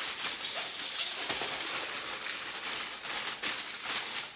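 Aluminium foil crinkling and crackling as it is pressed and crimped down tight over a baking dish, with irregular crisp crackles throughout.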